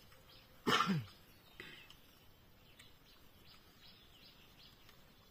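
A single short vocal sound falling in pitch about a second in, over a quiet outdoor background with faint bird chirps.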